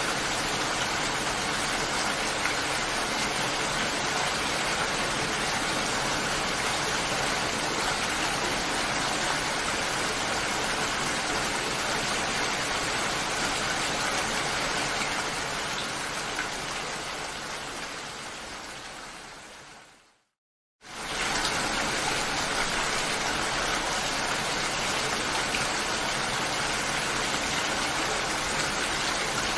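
Steady rain falling, an even hiss of many drops. About two-thirds of the way through it fades away to a moment of silence, then comes back suddenly at full strength, as a looped rain recording restarts.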